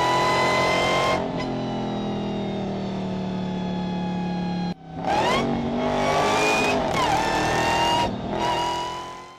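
Dodge Challenger Hellcat's supercharged 6.2-litre V8 held at high revs, then the revs falling away slowly for a few seconds. After a cut about five seconds in, the engine is revved up several times in quick rises, fading near the end.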